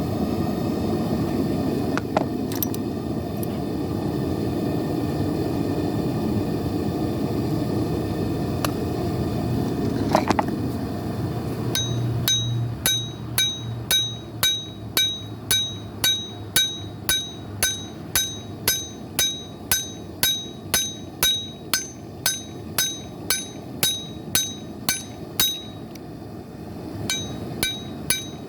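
Steady rushing of a running forge, then from about twelve seconds in a hammer striking a hot knife blade on an anvil, about two blows a second, each with a metallic ring. The blows pause briefly near the end, then start again.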